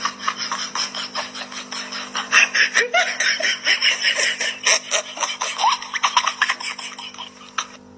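A person laughing hard and without a break, in quick repeated pulses, over a steady low hum.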